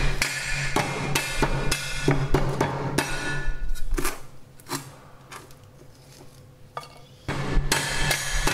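Heavy cleaver chopping lemongrass stalks on a thick round wooden chopping block, steady strokes about three to four a second with a deep knock from the block. The chopping thins to a few single strikes midway and picks up again near the end.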